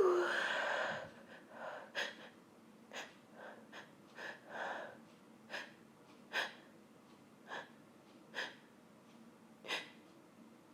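A woman's long breathy exhale at the start, then a dozen or so short sniffs and quick gasping breaths about once a second, her nose tickling from sniffed pepper.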